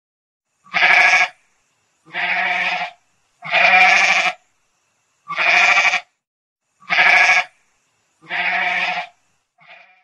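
Goat bleating: six loud bleats of about a second each with short gaps between, then a faint short one near the end.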